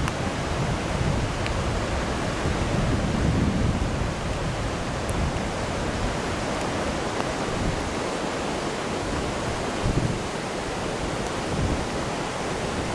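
Floodwater rushing steadily, an even noise with no breaks, with wind buffeting the microphone in uneven low swells.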